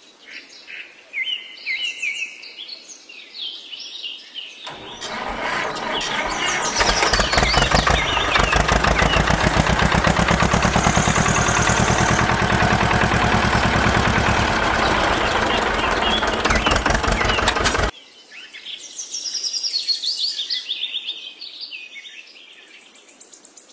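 Birds chirping, then a tractor engine sound comes in about five seconds in, swells over a couple of seconds and runs steadily with a rapid chugging pulse. It cuts off suddenly about three-quarters of the way through, and the bird chirping returns.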